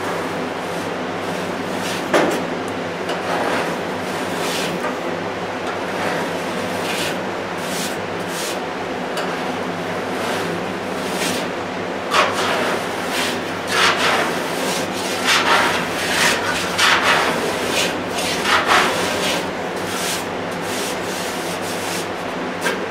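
Surform 'cheese grater' file rasping body filler off a car's front wing in repeated hand strokes, the strokes growing louder and quicker about twelve seconds in, over a steady low hum.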